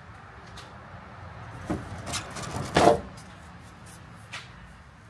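Plastic inner trim panel of a Ford F-150 tailgate being pried up and lifted off: a short run of scraping and knocking, loudest just before three seconds in, then one more click.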